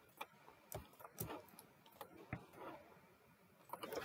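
Faint, scattered clicks of a computer mouse and keyboard, about ten in irregular succession, as objects are selected in drawing software.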